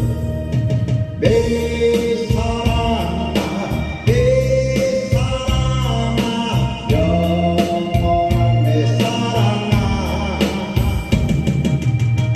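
A solo voice singing a song over a backing track with a steady drum beat. The singer holds long notes of about two seconds each, several times in a row.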